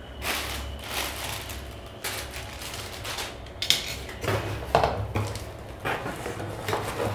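Stainless steel cookware and utensils being handled and set down: rustling at first, then a run of sharp clinks and knocks in the second half.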